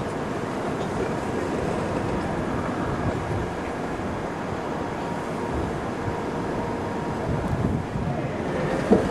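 London Underground track recording train, made up of 1960 Stock and 1973 Stock cars, running past along the platform: a steady rumble of wheels and motors, with one sharp knock near the end.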